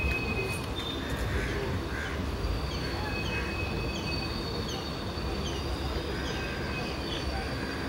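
Passenger train rolling slowly along a station platform with a low rumble and a thin, steady high squeal from the wheels. A bird calls over it with a run of short falling chirps, about two a second, through the middle.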